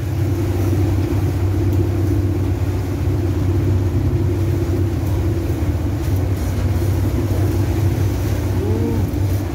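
A fishing boat's engine running steadily at trolling speed, a low drone, with wake water rushing behind the stern.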